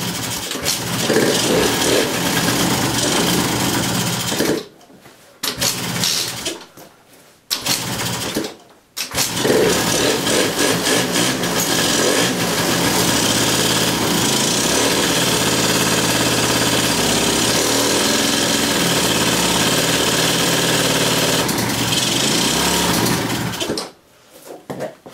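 Yamaha Jog scooter's 50cc two-stroke single-cylinder engine, air filter off, runs for a few seconds and dies, fires briefly again, then catches and runs steadily for about fifteen seconds before cutting out near the end. The carburettor's throttle and mixture screws are being adjusted, and the engine struggles to hold tickover on its own.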